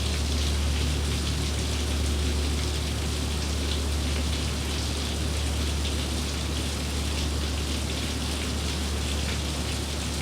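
Steady rain falling: an even hiss with a fine patter of drops and a low rumble underneath.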